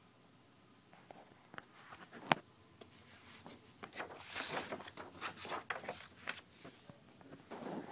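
Handling noise from a camera being picked up and moved: scattered clicks, one sharp click a little over two seconds in, then dense rustling and scraping as it brushes over a terry-cloth towel, coming again near the end.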